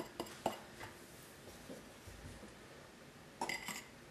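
A few faint clicks and taps from a small glass bowl as flour is tipped out of it into a glass mixing bowl, then quiet room tone with one short knock near the end.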